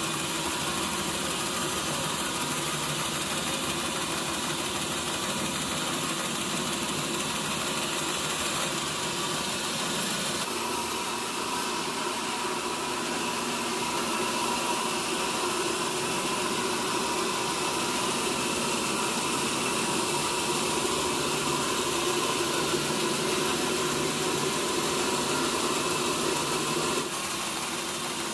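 Sawmill machinery running steadily, a constant mechanical hum with noise over it. The sound changes abruptly about ten seconds in and again near the end.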